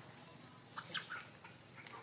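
Short, high-pitched chirping animal calls, loudest in a quick cluster about a second in.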